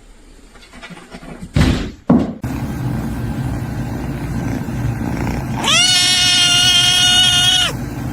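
Two sharp knocks, then a steady low rumbling noise. About two thirds of the way in, an animal gives one long, high, steady-pitched call lasting about two seconds.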